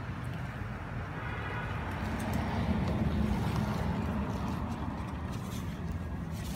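Steady low outdoor rumble, swelling for a couple of seconds about two seconds in, with a single sharp knock near the end.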